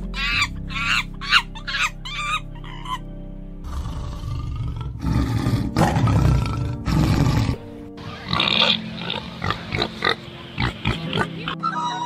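A quick run of short, high calls from macaque monkeys, then, from about four seconds in, a low rumbling tiger growl, with scattered short calls after it. Background music plays throughout.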